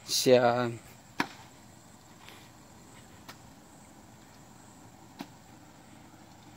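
A brief, loud, wavering shout lasting under a second right at the start, followed by a few faint clicks.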